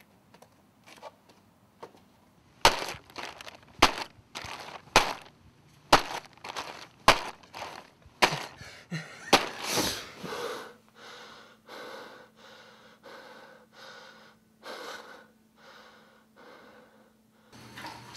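A string of loud, hard thuds, about one a second, with smaller knocks between them, like blows struck in a beating. After about ten seconds it gives way to quieter, rhythmic heavy gasping breaths, about one every two-thirds of a second.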